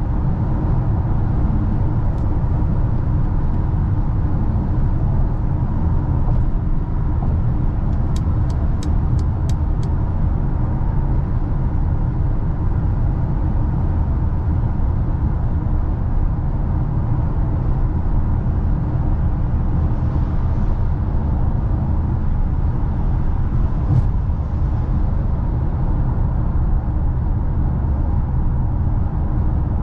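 2021 Mercedes GLA with its 1.3-litre, 163 hp turbocharged four-cylinder driving along: steady low engine and road noise. About eight seconds in there is a quick run of six sharp clicks.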